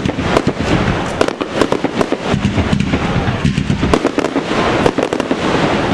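Aerial fireworks display: a dense volley of shell bursts, many sharp bangs and crackles a second over a low rolling rumble.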